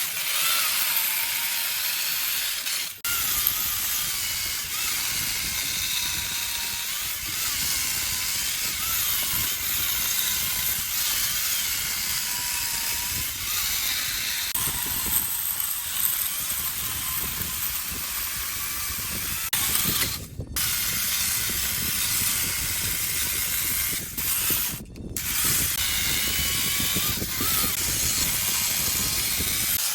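Chainsaw cutting into wood, its engine pitch wavering up and down as the blade bites and eases off, with a few brief breaks in the sound.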